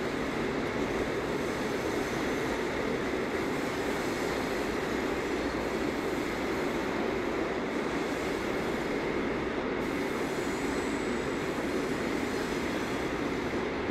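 Freight train of flat wagons loaded with pipes rolling steadily past on the rails, a continuous even rumble of wagon wheels on track.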